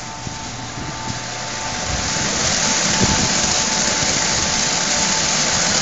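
Automatic rollover car wash at work: water spraying and rotating brushes scrubbing a car, a steady rushing hiss that grows louder over the first couple of seconds and then holds, with a faint steady whine from the machine.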